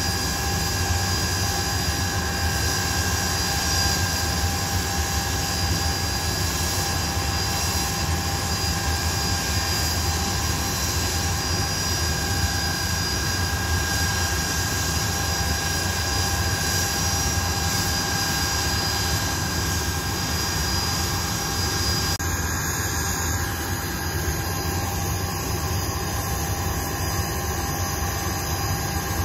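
Blackburn Buccaneer's twin Rolls-Royce Spey turbofan engines running, a steady whine of several tones over a low rumble.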